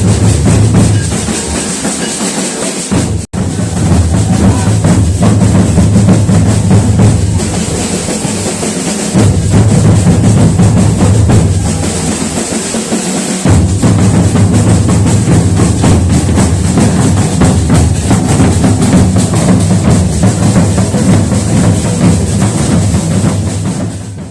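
Background music with drums and a prominent bass line, briefly cutting out about three seconds in and fading out at the end.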